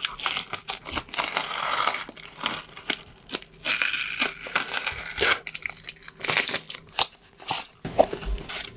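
Packaging being handled by hand, with crinkling and tearing sounds and many small clicks. It thins out near the end.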